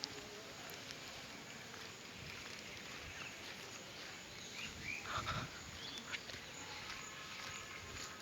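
Outdoor ambience: a steady background hiss with a few short, high chirps scattered through it.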